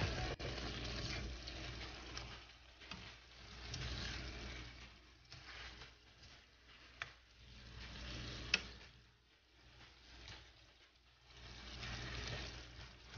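Beef and vegetables cooking faintly in a frying pan while being stirred with a utensil, the stirring noise coming and going in swells. A couple of sharp taps of the utensil against the pan past the middle.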